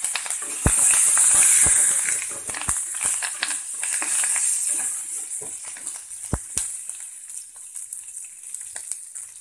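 Tempering for lemon rice sizzling and crackling in hot oil in a steel pan: curry leaves, dried chillies, mustard seeds and dals. The sizzle is loudest a second or two in and dies down, with a few knocks as a wooden spatula stirs against the pan.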